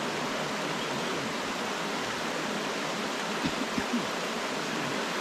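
Shallow jungle river running steadily over rocks. A few light knocks sound about three and a half seconds in.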